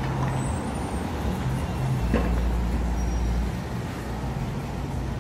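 Street traffic noise with a low motor-vehicle rumble, which deepens for a second or so from about two seconds in, with a single sharp click about two seconds in.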